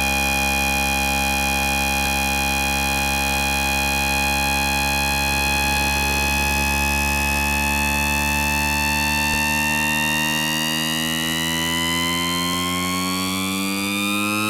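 Black MIDI rendering: a dense synthesized chord of many sustained tones held at a steady level. From about the middle onward the whole chord glides upward in pitch, rising ever faster toward the end like a siren.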